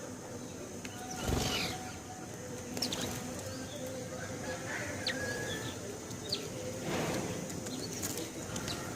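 House sparrows chirping in short, scattered high calls, with two brief whooshes of wings flapping, about a second in and again around seven seconds.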